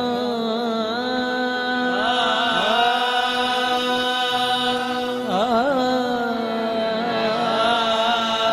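Qawwali: a singer holds long notes, twice breaking into quick wavering ornaments, over a steady harmonium drone.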